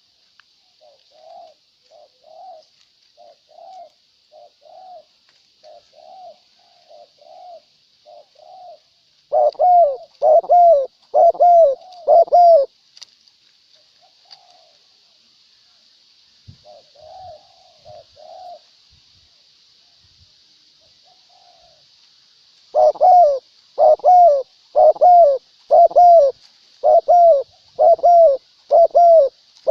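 Spotted doves cooing. A fainter dove gives a steady run of short coos, then a much louder, closer dove answers with bursts of rhythmic coos, about one a second.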